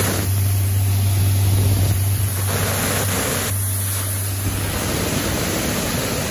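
Detroit Diesel Series 60 inline-six diesel running an Atlas Copco 1600 cfm portable air compressor at a steady speed: a low, even drone under a broad rushing of air that swells and fades.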